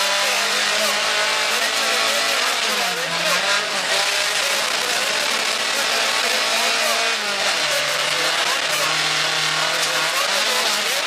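Rally car engine running hard on a gravel stage, heard from inside the cabin, over a steady hiss of tyre and gravel noise. The engine pitch drops about three seconds in and again about seven seconds in, then climbs back.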